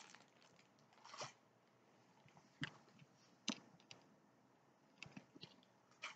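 Near silence, broken by a handful of faint clicks and rustles as a tall boot is handled and set down.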